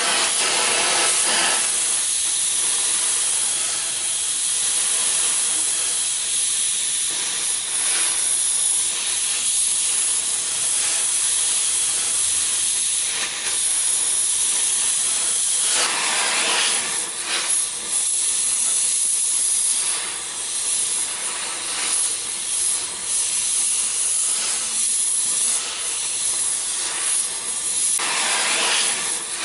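Cutting torch flame hissing steadily as it heats a bent steel plate, swelling louder for a moment about halfway through and again near the end.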